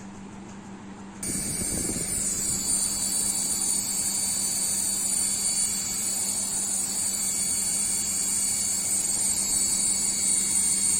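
Toy RC helicopter's small electric motors and rotor blades switching on suddenly about a second in, then running steadily with a high whine.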